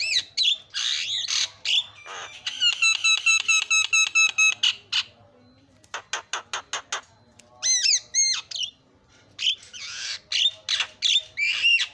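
Javan myna calling in a varied mix: harsh squawks and chatter, a fast even run of repeated notes, a quick series of clicks, and two gliding whistles about eight seconds in, broken by a short lull near the middle.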